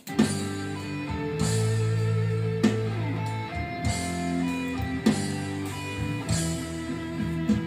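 Backing music with guitar, starting suddenly: chords strummed every second or two over held low notes.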